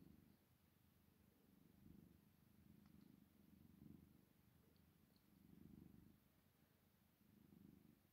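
Tabby cat purring softly, the low rumbling purr swelling and fading in slow waves a second or two apart.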